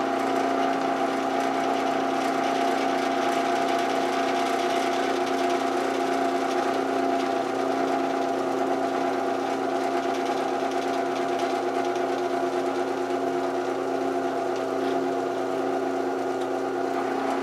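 Drill press motor running at a steady hum while a small bit drills a pilot hole in metal under very light feed pressure.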